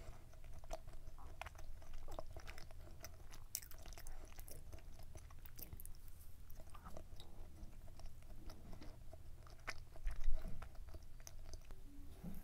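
Close-up chewing and biting of a dense, chewy chocolate brownie muffin, with many small sticky mouth clicks. A louder low thump comes about ten seconds in.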